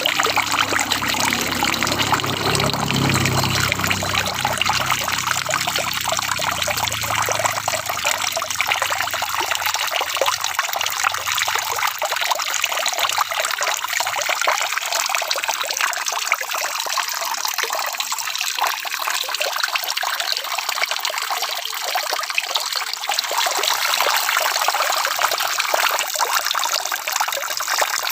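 Steady rain falling with a dense, even patter and trickle of water. A low rumble underneath fades away during the first ten seconds or so.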